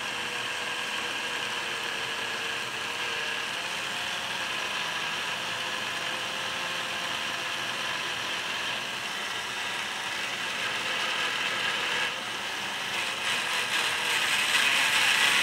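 Model locomotive chassis' small electric motor and gear drive running steadily on bench power with its wheels spinning, a steady gear whirr over a faint motor whine, freshly greased and oiled while its wheels are cleaned. It grows louder and rougher near the end.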